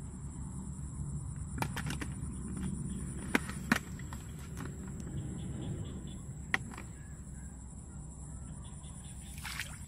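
Plastic bottle trap handled and pressed into shallow muddy water: a few sharp clicks and knocks of the plastic over a steady low rumble, with a faint high whine throughout.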